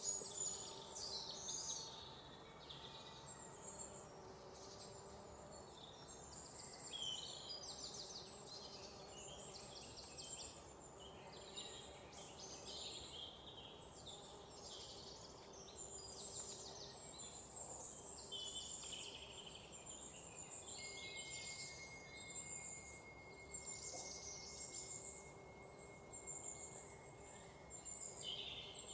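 Many songbirds chirping and trilling together in a busy mix of quick, high calls. In the second half a thin, steady high tone holds for about seven seconds.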